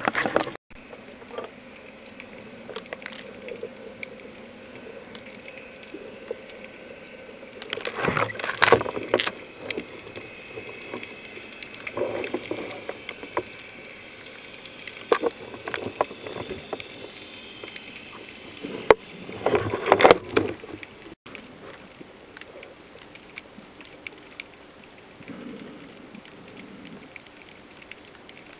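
Water heard through an underwater camera: a steady muffled hiss with bursts of bubbling and splashing, the loudest about eight seconds in and again about twenty seconds in.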